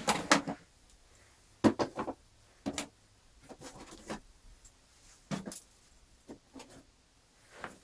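Scattered knocks and bumps, about eight separate short impacts a second or so apart, as objects are handled and moved about.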